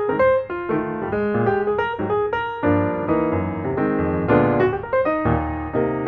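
Background piano music: a melody of quick separate notes over sustained chords.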